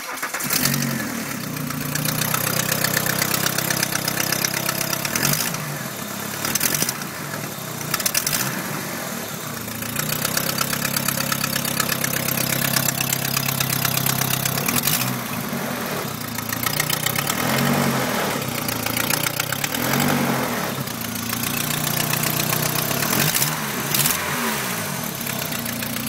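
An engine starts and then runs with a clattering rattle, revved briefly several times. The owner takes the rattle for a cracked exhaust manifold.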